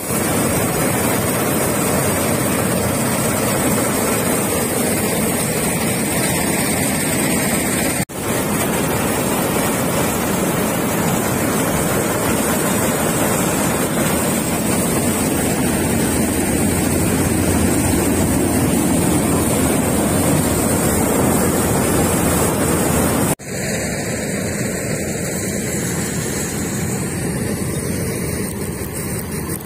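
Malkit combine harvester running, its engine and threshing works making a loud, steady din, with wind noise on the microphone. The din breaks off sharply twice, about 8 and 23 seconds in, and is lighter after the second break.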